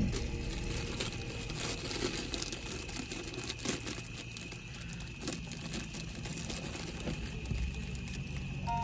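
Plastic packet crinkling and rustling in irregular crackles as it is handled, most likely the emptied tea-leaf packet.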